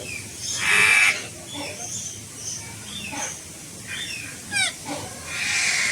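Several birds calling: scattered chirps and quick falling whistled notes, with two loud harsh screeches, one about a second in and one near the end.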